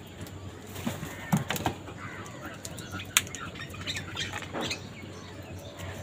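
A flock of house crows feeding at a grain bowl: wings flapping and a few sharp taps, with short bird calls about two-thirds of the way in.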